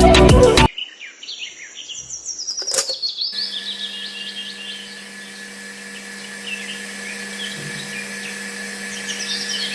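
Background music that cuts off about a second in, followed by small birds chirping in quick repeated trills. A single sharp click comes a couple of seconds in, and a steady faint hum starts soon after and continues under the birds.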